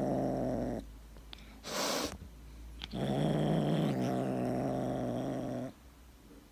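Tabby kitten making a low, steady throaty rumble while gnawing a long chew held in its mouth. The rumble comes in two long stretches, with a short burst of noise in the gap between them, and stops a little before the end.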